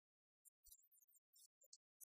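Near silence, with only faint, brief flecks of hiss that cut in and out.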